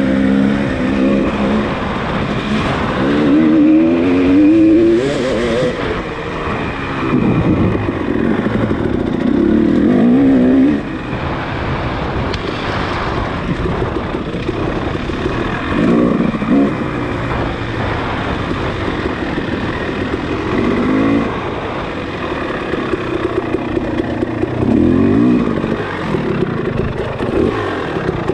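Off-road motorcycle engine racing over a trail, the pitch climbing and dropping again and again as the rider opens and closes the throttle and shifts.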